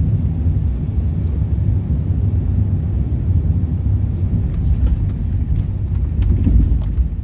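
Airbus A380-800 cabin noise heard from a passenger seat: a steady low rumble of engines and airflow, with faint ticks and rattles in the second half and a brief swell about six and a half seconds in.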